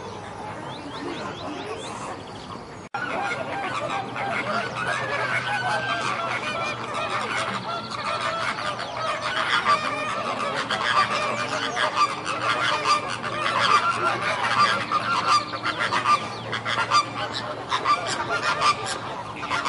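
A flock of flamingos honking, many goose-like calls overlapping. The sound breaks off for an instant about three seconds in and comes back louder and busier.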